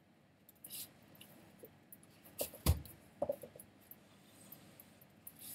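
Faint scattered clicks and small knocks in a quiet room, with one louder thump about two and a half seconds in and a few quick clicks right after it.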